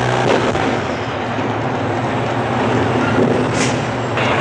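A heavy truck's engine running steadily, a continuous rumble with a low hum under it.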